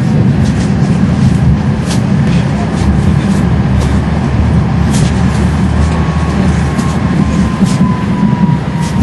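Streetcar running along its tracks, heard from inside the car: a steady low rumble of wheels on rails with scattered clicks and knocks. A faint high whine, falling slightly in pitch, comes in near the end.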